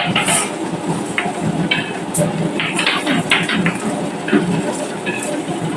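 Marbles rolling down a wooden marble run, a continuous rolling rumble with frequent irregular clicks and clacks as they hit the track and each other.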